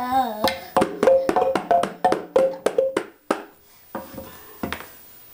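Small wooden slit drum struck quickly with a stick, each hit giving a hollow, pitched wooden tone, about three hits a second in an uneven rhythm, with taps on a hand-held frame drum. The quick hitting stops a little past three seconds in, leaving a few softer taps.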